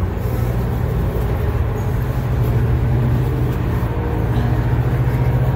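Loud, steady low rumble of a motor running, with a faint regular pulsing toward the end.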